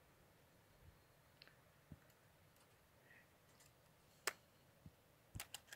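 Near silence broken by a few sharp clicks: a single one about four seconds in, then a quick run of three or four near the end.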